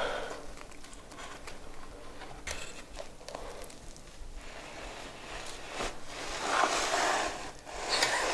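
Quiet handling of a baking tray: a few light knocks, then a scraping rustle lasting about a second as a baked fries-and-cheese pizza slice is dragged and lifted off the floured metal tray.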